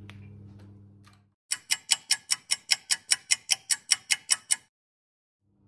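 Clock-ticking sound effect marking a time skip: about sixteen sharp, evenly spaced ticks, roughly five a second, that stop abruptly. Before it, a faint steady hum.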